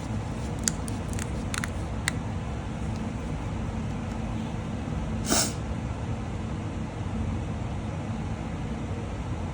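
A few light clicks of small plastic powder jars being handled, then one short rustling burst about five seconds in, over a steady low background hum.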